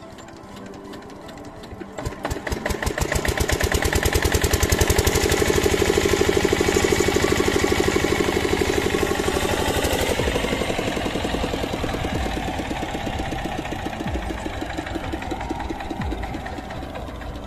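Lister-type diesel engine of an irrigation pump set being hand-cranked and starting: a fast, even beat begins a couple of seconds in and quickens, then about ten seconds in the high hiss drops away and the engine keeps running with a slower, steady beat.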